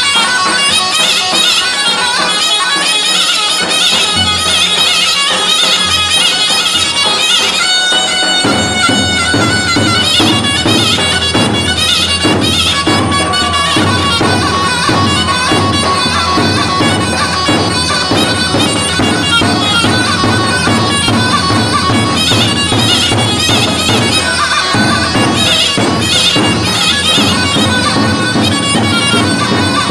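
Loud halay dance music: a shrill, reedy zurna-style melody with a davul bass drum beat that comes in heavily about eight seconds in.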